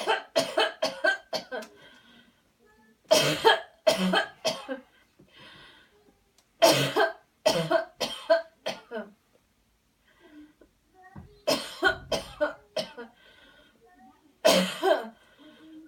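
A person coughing deliberately after a deep breath, forcing out clusters of short coughs in about five bouts with short pauses between them, as a chest-clearing exercise.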